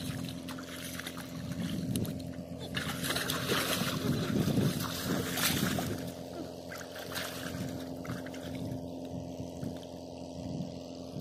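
Shallow pond water splashing and sloshing as hands work in it, loudest about three to six seconds in, over a steady low hum.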